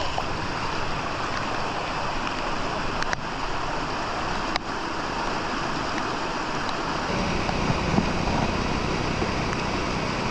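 Steady rushing water from a small waterfall, an even hiss with no break, with rain falling over it.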